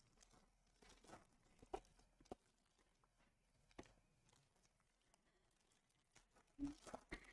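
Faint crinkling and tearing of foil wrappers on Illusions football trading-card packs being opened and handled. Mostly near silence, with a few soft rustles scattered through and a small cluster near the end.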